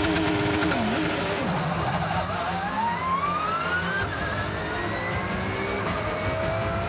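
Porsche 911 GT3 Cup race car's naturally aspirated flat-six engine, revving near the start and then accelerating hard. The pitch climbs steadily from about two seconds in and drops back about four seconds in for an upshift, then climbs again.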